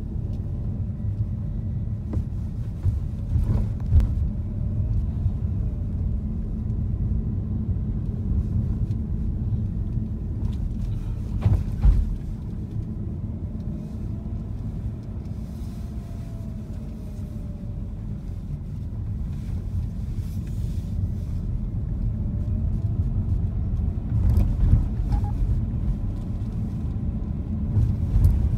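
Car driving, heard from inside the cabin: a steady low rumble of road and engine, with a few short knocks, about four seconds in, near twelve seconds and around twenty-five seconds.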